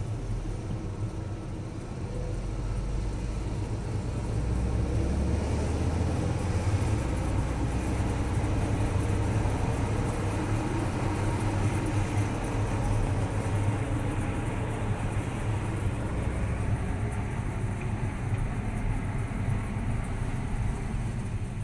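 Audi B8.5 S4 rolling at speed, with a low drone under the road and tyre noise; it gets louder a few seconds in and then holds steady. The noise comes whenever the car is rolling, whatever the engine or transmission is doing, and the owner suspects a wheel bearing or CV joint.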